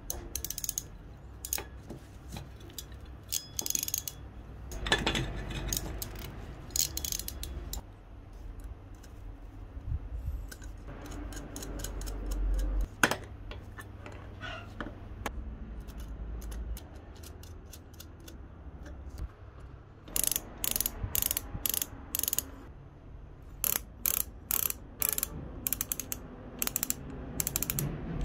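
Hand tools on small metal parts: crimping pliers and pliers clicking and scraping as a wire's ring terminal is crimped and fastened to the bell's terminal posts. Scattered clicks and scrapes are followed by runs of quick sharp clicks in the last third.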